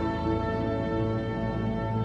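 Film score music: slow, sustained chords held steady, with a low pulsing bass line underneath.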